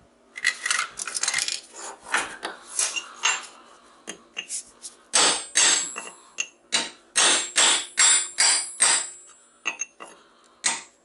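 Hammer blows on a steel chisel, knocking apart a transformer's steel core to get at the copper coil: a cluster of strikes, then a steady run of about two blows a second with a metallic ring.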